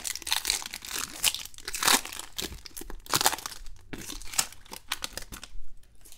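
Foil wrapper of a jumbo baseball card pack being torn open and crinkled by hand: dense, sharp crackling that stops shortly before the end.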